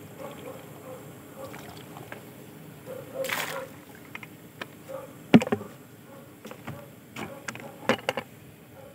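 Liquid probiotic solution sloshing and splashing out of a plastic bucket onto a pond, with a short splash about three seconds in. Then several knocks from the handled bucket, the loudest a hard thump about five and a half seconds in.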